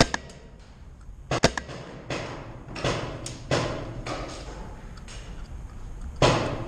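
Magfed paintball markers firing: sharp pops, a pair right at the start and another pair about a second and a half in, then several softer pops and a louder one near the end.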